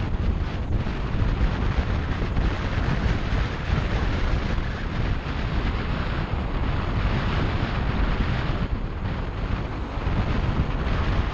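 Wind rushing and buffeting over an action camera's microphone on a moving motorcycle, a steady roar heaviest in the low end, with the Kawasaki Ninja 250SE's parallel-twin engine running underneath at a steady cruise.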